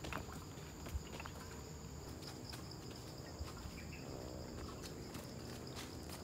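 Footsteps on a dirt forest trail strewn with dry leaves, scattered irregular steps over a steady high-pitched drone of insects.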